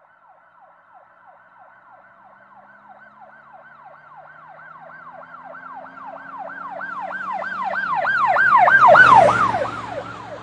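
Emergency vehicle siren in a fast yelp, about four sweeps a second, growing steadily louder as it approaches. It passes close about nine seconds in with a rush of vehicle noise, then fades as it moves away.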